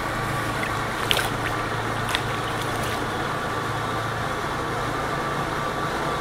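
Can-Am Renegade 800 ATV's V-twin engine running steadily as the quad ploughs through river water, with a constant rush of splashing spray. There are a couple of sharp clicks in the first two seconds.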